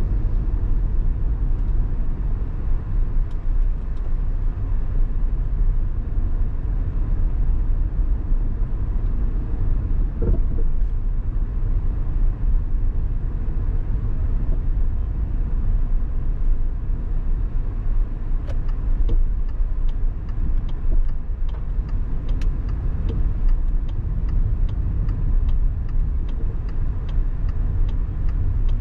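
A car driving on city streets: a steady low rumble of engine and road noise. From about two-thirds of the way through, a faint, regular ticking comes in at roughly two ticks a second.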